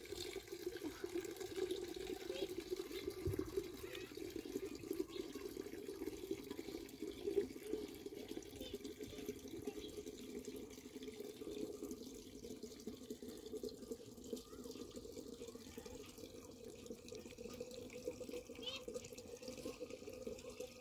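Steady running water, with a few faint short high chirps near the end.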